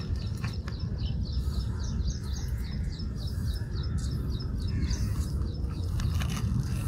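A bird calling: a long run of short high notes, about four a second, that stops about five and a half seconds in, over a steady low rumble.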